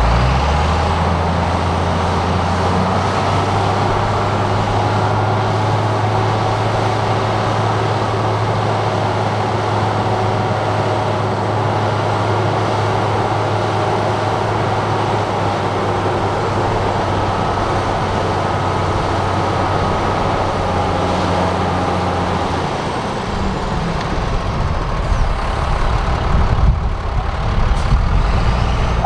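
Large diesel engine of heavy earthmoving machinery running with a steady low hum, which gives way to a rougher, more uneven and louder sound for the last few seconds.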